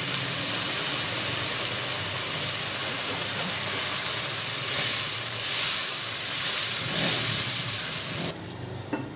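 Onion, garlic and spice masala sizzling in ghee in a karahi over medium-low heat, being stirred with a silicone spatula. It is a steady hiss with a couple of brief louder swells and cuts off suddenly near the end.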